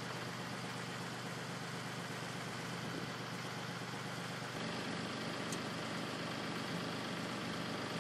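An engine idling steadily, a low even hum that gets slightly louder about halfway through, with a faint tick near the end.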